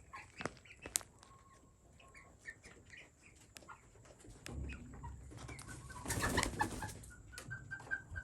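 Young chickens peeping and trilling softly in many short chirps, with a short rustling burst about six seconds in.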